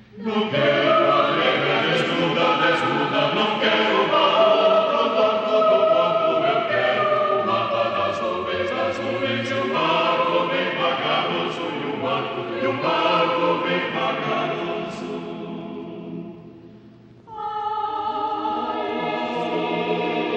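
Choir singing sustained, overlapping chords. The sound dies away about 16 seconds in, then the choir comes in again with a new phrase a second later.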